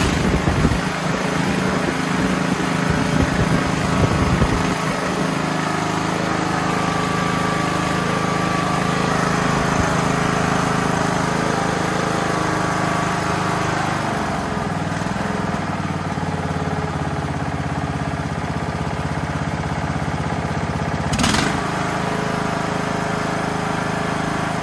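Craftsman LT1000 lawn tractor engine running on a newly fitted replacement carburetor, just after starting. It runs a little unevenly for the first few seconds, then settles into a steady run, with a brief dip in speed midway and a short rush of noise near the end.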